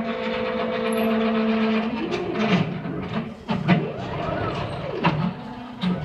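ShopBot CNC router's stepper motors whining as the gantry moves through an air cut, holding a steady pitch for about two seconds and then rising and falling again and again as the axes speed up and slow down.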